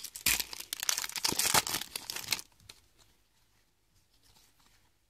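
Trading-card booster pack wrapper being torn open and crinkled in the hands, a dense crackling that stops about two and a half seconds in.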